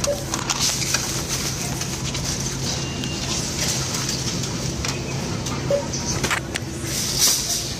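Coins being fed into a supermarket self-checkout's cash machine and its change paid out: a few sharp clicks and rattles over a steady low hum.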